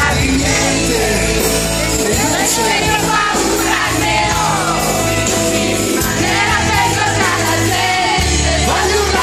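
Live pop-rock band playing, with drums and electric guitar under a singing voice, heard loud from the audience floor of a club.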